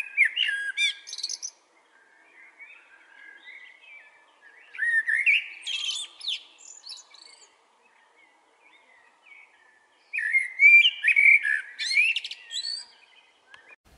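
Male Eurasian blackbird singing: three phrases of warbling notes, each ending in high, squeaky twitters, with soft twittering in the gaps between them.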